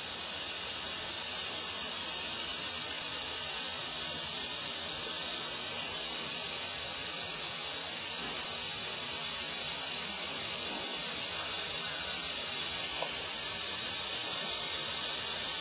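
Vacuum brake bleeder hissing steadily as it draws brake fluid from the master cylinder down through the new line to the caliper's open bleeder nipple.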